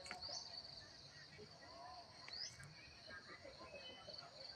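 Faint crickets chirping in a steady, finely pulsed trill, with a short rising call repeating about every two seconds.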